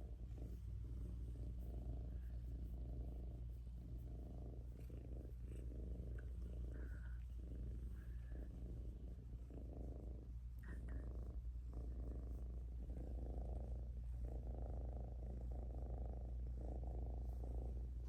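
Domestic cat purring close to the microphone, a steady low rumble that swells and fades with each breath.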